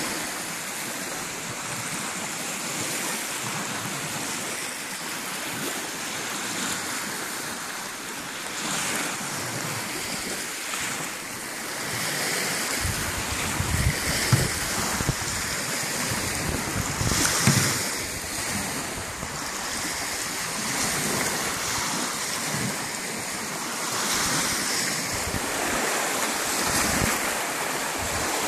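Small waves breaking and washing up onto a sandy beach in a steady wash that swells and eases, with a few gusts of wind rumbling on the microphone.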